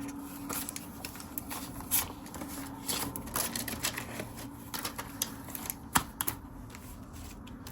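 Paper banknotes and binder envelopes being handled: irregular rustling with scattered light clicks and taps, the sharpest about six seconds in.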